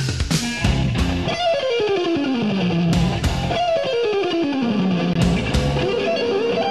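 Rock music with distorted electric guitar and drums; twice the guitar plays a long descending run.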